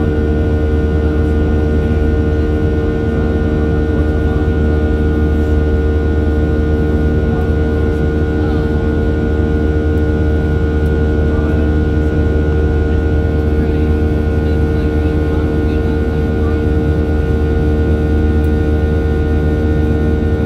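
Boeing 737-700's CFM56-7B jet engines running steadily: a constant low rumble with several fixed whining tones above it, neither spooling up nor down.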